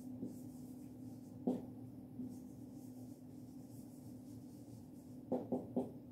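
Marker pen writing on a whiteboard: faint strokes, with a short tap about a second and a half in and a few more taps near the end, over a steady low hum.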